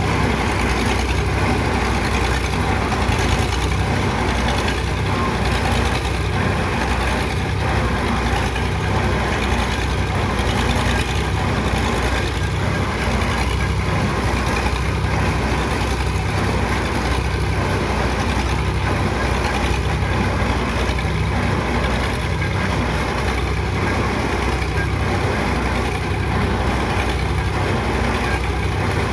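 Heavy construction machine's engine running steadily, a continuous low hum with a faint regular pulsing.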